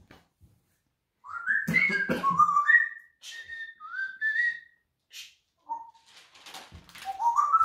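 Grey parrot whistling a run of short rising whistled notes that step upward in pitch, then another rising whistle near the end.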